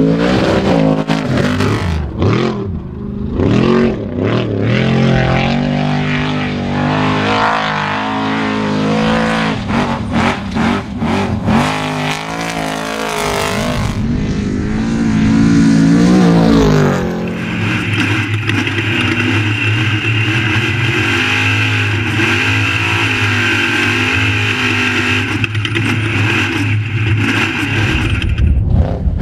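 Off-road race vehicle's engine revving hard, its pitch rising and falling. About 17 seconds in it settles into a steadier drone with a high whine.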